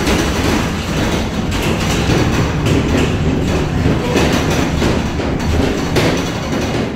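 Road rumble and constant rattling of a U-Haul truck's metal cargo box while the truck drives, heard from inside the box.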